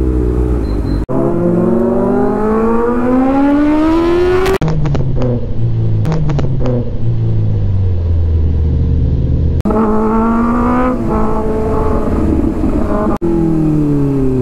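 Inline-four sport motorcycle engine accelerating hard through the gears: the engine note climbs in several long rising runs, sinks lower through the middle, and falls away near the end as the bike slows.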